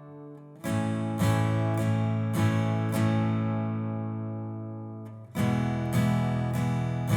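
Guitar strumming open major chords of an E–D–A progression at a slow tempo: a run of about five strokes roughly every half second, the chord left to ring and fade, then a change of chord near the end with another run of strokes.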